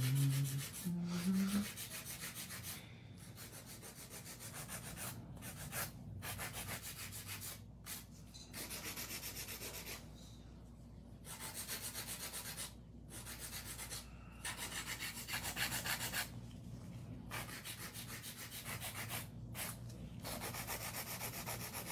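Hand nail file rasping back and forth across acrylic nails, shaping them: runs of quick strokes broken by short pauses.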